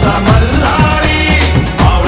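Marathi film song playing loudly, a stretch with no sung words: a steady drum beat, about three hits a second, under a held high melodic line.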